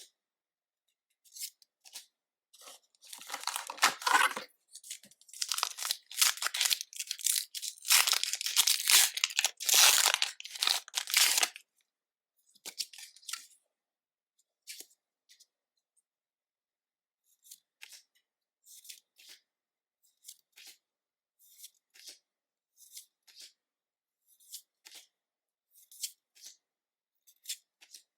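Foil wrapper of a Pokémon trading card booster pack being torn open and crinkled for several seconds. Then come short, faint card flicks about once a second as the cards are slid through one by one.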